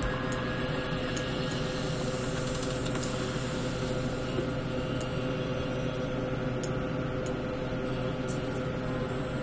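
Steady electrical hum and fan noise of a computer setup, with a few faint clicks in the second half, typical of a mouse or keyboard in use.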